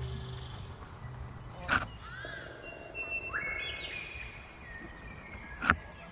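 Birds chirping and calling, with rows of short high chirps and a few longer pitched calls, one of them rising. Two sharp clicks cut through, one a couple of seconds in and a louder one near the end.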